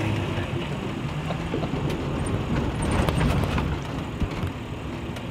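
Cabin noise of a 1964 Land Rover Series II on the move: the engine running under steady road noise, with a few short knocks from the cab.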